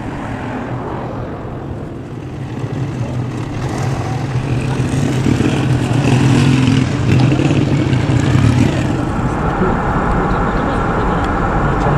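Motor vehicle running: a steady low engine hum with road noise, growing louder from about four seconds in and levelling off near the end.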